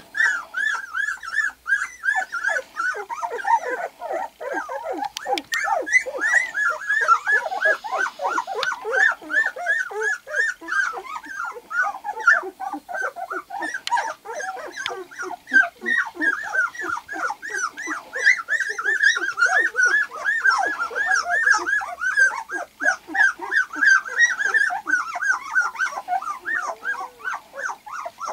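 A litter of two-week-old white golden retriever puppies whimpering and squeaking, with short high-pitched cries several a second. More than one puppy cries at once, without a break.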